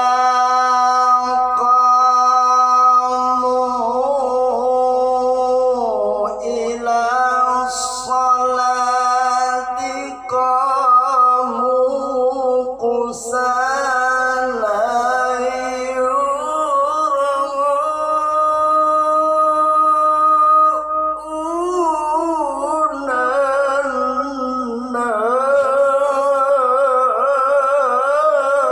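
A male Quran reciter (qari) chanting in the melodic tilawah style, holding long drawn-out notes and decorating them with wavering vibrato and melismatic turns. There are short breaks for breath about ten seconds in and again past twenty seconds.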